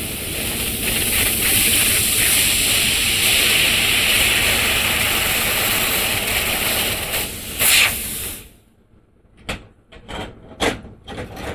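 Handheld laser cutting head hissing steadily as its gas jet and beam cut through a roughly 3 mm metal plate, throwing sparks. The hiss stops about eight and a half seconds in and is followed by a few light clicks.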